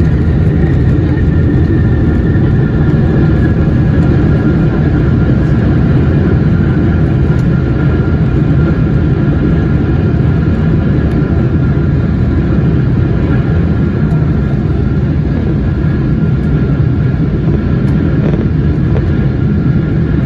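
Cabin noise inside a Boeing 777-300ER rolling along the ground just after landing: a loud, steady rumble of engines and wheels with a high whine over it that sinks a little in pitch over the first few seconds.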